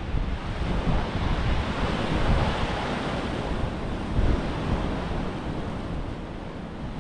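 Sea waves washing onto a rocky shore, one surge swelling about two to three seconds in and easing off, with wind rumbling on the microphone.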